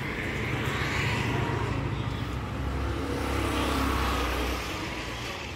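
Motor vehicle engine and road noise, louder about a second in and again around four seconds, easing off near the end.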